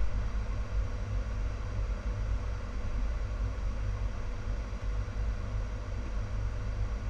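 Steady cockpit noise of a Hawker 700 business jet in the climb: a low rumble of its Garrett TFE731 turbofans and rushing air, with a steady tone running through it.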